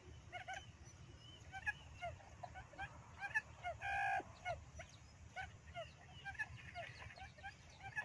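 Quail calling: a quick stream of short chirping calls, with one louder, longer call about four seconds in.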